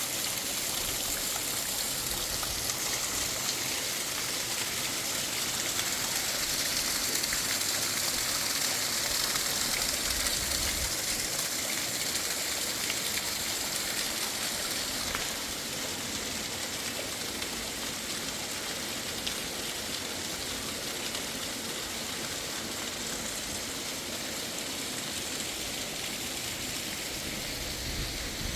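Steady rush of a fast mountain stream, a little louder in the first half and easing slightly about fifteen seconds in.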